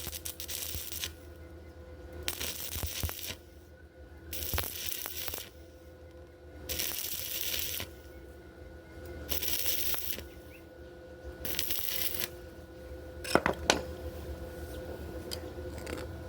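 Electric arc welding in short tack bursts: about six crackling, hissing runs of roughly a second each, about two seconds apart, over a steady hum. Two sharp metallic clicks come near the end.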